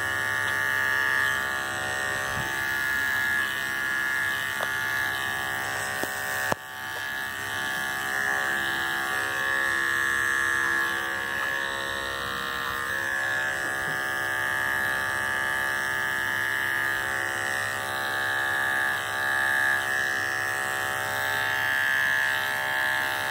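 Andis electric dog clippers running with a steady buzz, cutting hair on a miniature schnauzer's ear, with a short click and dip in level about six and a half seconds in.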